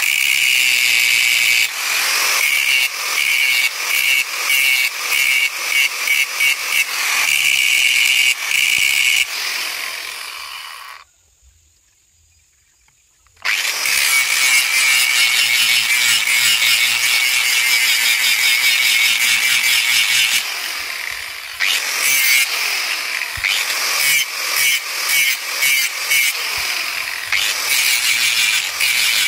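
A hand-held angle grinder with an abrasive disc grinds the steel blade of a slaughtering machete. Its high-pitched whine rises and dips in repeated passes as the disc bites the metal. About ten seconds in the grinder winds down and stops, and after a couple of seconds of quiet it starts again and keeps grinding.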